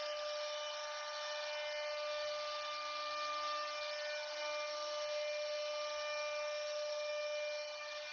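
CNC router spindle running with a steady high whine over a hiss of cutting noise, carving wood.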